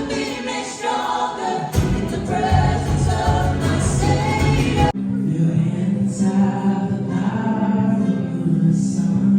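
Background music with singing; about five seconds in it cuts abruptly to a different, more sustained piece.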